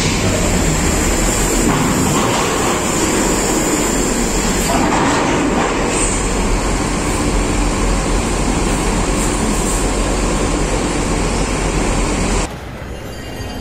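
Mercedes-Benz coach driving off a ferry onto the dock ramp and passing close: a loud, steady engine rumble and road noise. The sound cuts off suddenly near the end.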